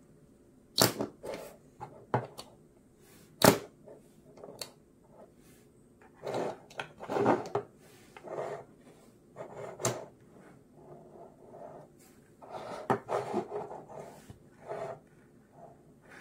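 Handling of a small flashlight and its packaging: a few sharp clicks and knocks, the strongest about three and a half seconds in, with scraping and rustling between them.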